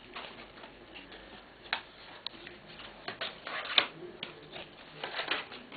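Jigsaw lampshade pieces being handled and slotted together by hand: irregular light clicks and rustling, with a sharp click a little under four seconds in and a crackly cluster near the end.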